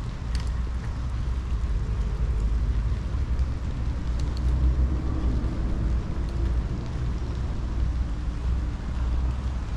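Steady low rumble of distant city traffic, with a faint engine hum swelling in the middle and a few brief high clicks.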